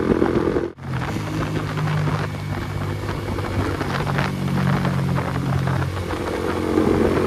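Motorcycle engine running steadily while riding. The sound cuts out abruptly for a moment just under a second in, then resumes at an even pitch that shifts slightly a couple of times.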